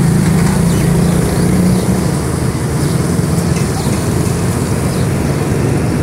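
An engine running steadily with a low, even hum, a little louder in the first two seconds.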